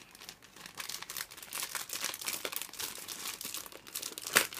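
Clear plastic bags around model kit runners crinkling as they are handled and lifted out of the box, an irregular run of crackles with one sharper crackle near the end.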